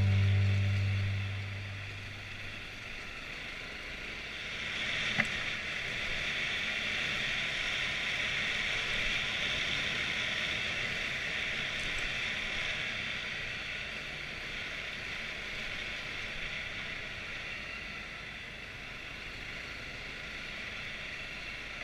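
Steady, muffled rushing of wind and riding noise from a Honda CRF250L dirt bike moving along a dirt trail, picked up by an on-board camera, with one sharp click about five seconds in. Background music fades out in the first two seconds.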